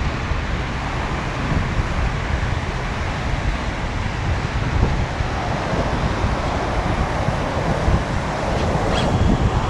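Steady rush of water churning out of a spillway running high after heavy rain, with wind buffeting the microphone.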